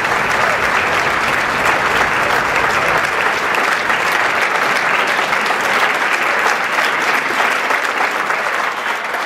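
Concert audience applauding steadily, a dense, even clapping from a full hall.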